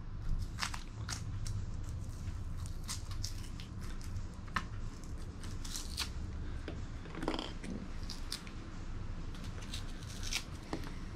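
Excess expanding spray foam being picked, peeled and broken off a foam-filled door-panel armrest by hand: irregular crisp crackles and snaps over a steady low hum.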